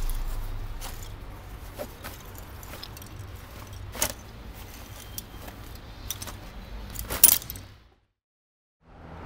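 A backpack being handled and rummaged through: scattered clicks and rattles of its buckles and straps, the loudest a short clatter near the end, over a low steady hum. The sound cuts out to silence for about a second shortly before the end.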